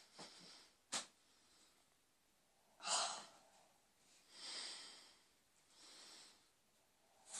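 A sleeping boy's snoring, heard as breathy snorts about a second and a half apart, the loudest about three seconds in. A sharp click comes about a second in.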